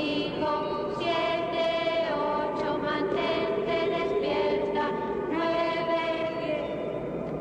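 Choir of voices chanting in sustained, overlapping notes that shift pitch every second or so, as part of suspense music.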